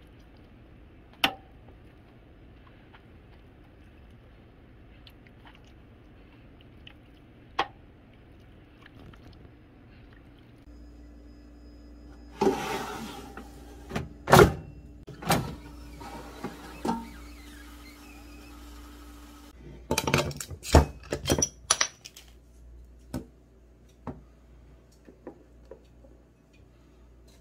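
Handling noises of an air fryer: sharp clicks and hard knocks of the basket and timer dial, and a steady hum with a single tone for several seconds in the middle. A quick run of clicks and knocks follows about twenty seconds in.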